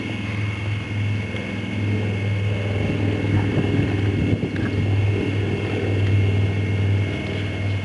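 A Labrador gnawing on a large bone, with scattered small crunches and clicks about midway. A steady low drone runs under it and is the loudest sound.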